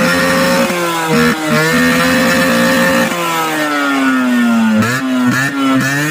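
Yamaha RX100's two-stroke single-cylinder engine revved through its stock exhaust: quick throttle blips about a second in, a held rev, then the pitch sliding slowly down. Near the end come more quick blips with sharp cracks of backfire from the exhaust.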